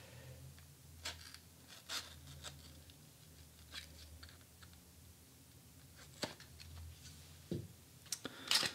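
Faint, scattered clicks and scratches of a playing-card tuck box being handled as its paper seal is cut open, over a low steady hum.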